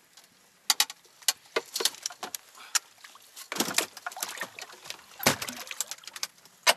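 Irregular sharp clicks and knocks from fish and fishing tackle being handled in an inflatable boat, with two longer scraping rustles, one about halfway and one past five seconds in.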